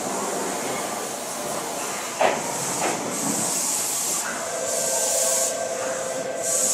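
A Tokyu 7000-series electric train runs into the platform and slows, with steady running noise and one sharp clunk about two seconds in. In the second half there is a steady whine and repeated bursts of hissing as the train comes to a stop.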